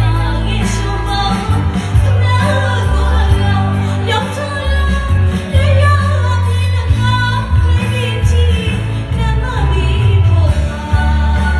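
A woman singing a Burmese prayer song into a microphone over amplified backing music with a heavy, steady bass line.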